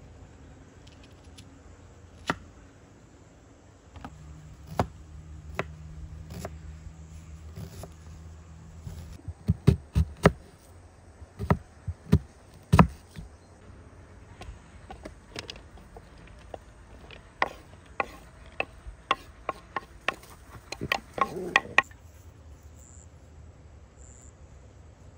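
Knife chopping food on a wooden board: a few widely spaced sharp chops, then quicker groups, ending in a fast run of chops that stops suddenly.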